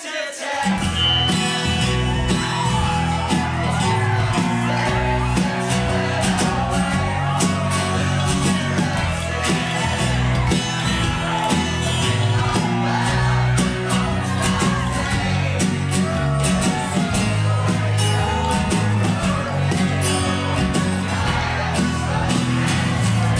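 Background music: a song with a singing voice over a steady bass and drum beat.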